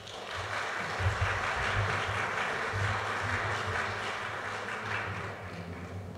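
Audience applauding, swelling in right away and tapering off toward the end.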